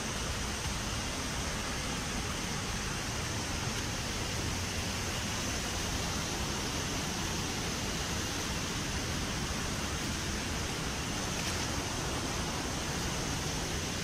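River water rushing over rocky rapids: a steady, even hiss.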